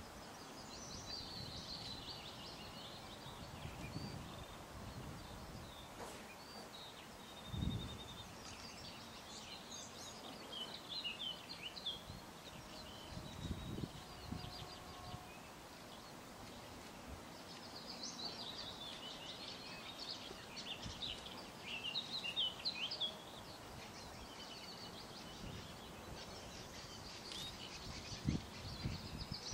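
Small songbirds singing in bouts of quick, jumbled high-pitched phrases over steady outdoor background noise, with a few short low thumps.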